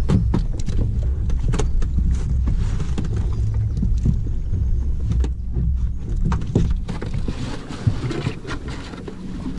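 Thumps and knocks of boots and gear on an inflatable zodiac boat's rubber hull as soldiers shift and climb about, over a steady low rumble.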